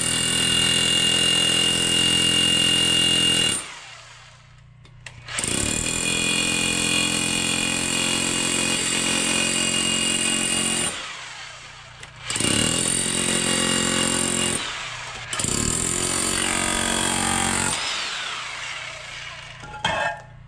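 Bosch electric demolition hammer chiseling into a hollow concrete block, running in four bursts of a few seconds each with short pauses between, the last one trailing off. Near the end, broken pieces of block knock together a few times.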